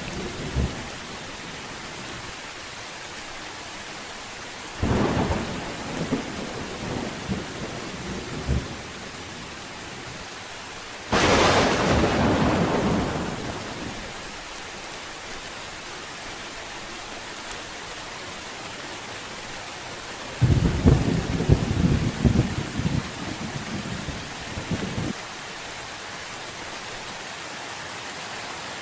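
Steady rain with three peals of thunder: one about five seconds in, a sharp clap about eleven seconds in that is the loudest and fades over a few seconds, and a long low rumble from about twenty seconds in.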